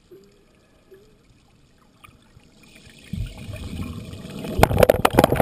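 Water heard underwater: quiet at first with a couple of faint short squeaks, then a low rushing swell from about halfway, and dense crackling and popping of bubbles and churned water near the end.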